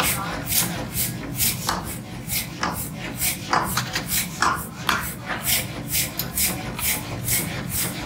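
Rhythmic scraping strokes of a hand tool on metal, about three to four strokes a second, over a steady low hum.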